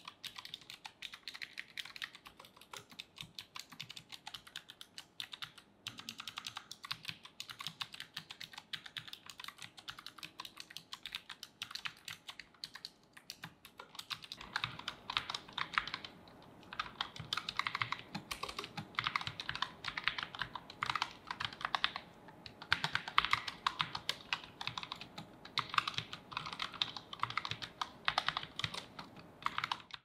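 Fast continuous typing on a Redragon HORUS K618 ultra-slim low-profile mechanical keyboard, a dense stream of key clicks. The first half is typed on low-profile Blue (clicky) switches. About halfway the typing changes to low-profile Brown switches and becomes louder and deeper.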